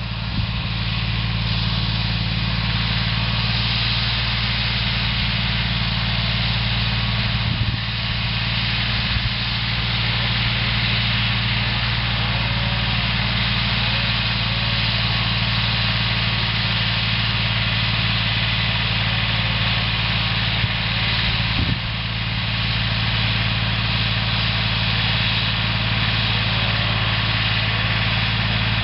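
Yanmar YM169 compact tractor's diesel engine running steadily at low revs, with an even low hum and hiss.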